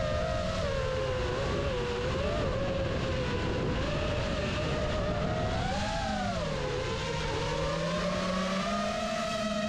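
FPV drone's motors and propellers whining steadily, the pitch wavering with the throttle and swooping down and back up about six seconds in.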